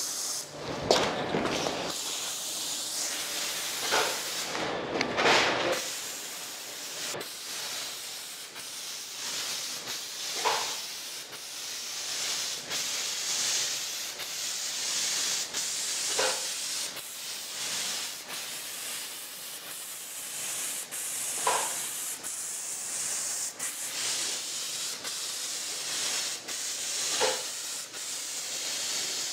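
Graco Merkur air-assisted airless spray gun hissing steadily as it sprays paint, run at 30 PSI pump air on a 45:1 ratio with 20 PSI atomizing air. The hiss is fuller for the first six seconds, and a brief knock recurs about every five to six seconds.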